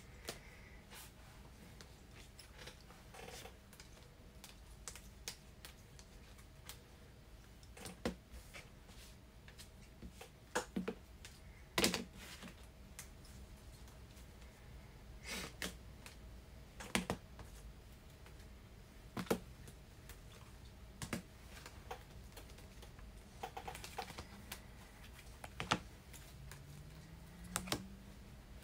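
Irregular light clicks and taps of plastic on a desk as trading cards are handled and slid into penny sleeves and rigid plastic toploaders, with a sharp click every second or two.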